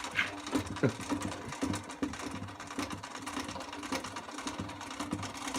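Height-adjustment crank of a DeWalt 12.5-inch portable thickness planer being turned, its mechanism clicking rapidly and steadily as the cutter head winds down.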